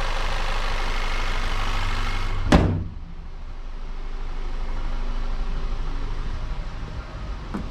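Volkswagen CC's turbocharged engine idling, with the hood slammed shut once about two and a half seconds in; afterwards the idle runs on more quietly, muffled under the closed hood.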